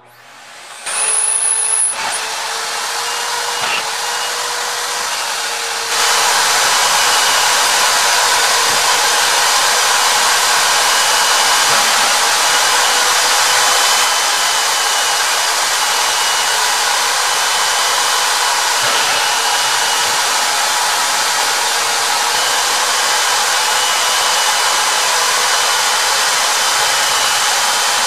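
Wet/dry shop vacuum switched on: the motor spins up with a brief high whine, then runs steadily. About six seconds in it gets louder and keeps running steadily as the nozzle sucks up a pile of drywall dust.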